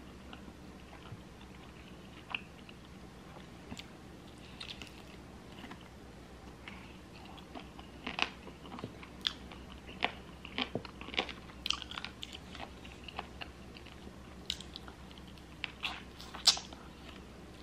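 Close-up eating sounds of chicken wings: moist chewing, and wet clicks and crunches of biting meat off the bone. They are sparse at first, come thick in the second half, and the loudest snap comes near the end.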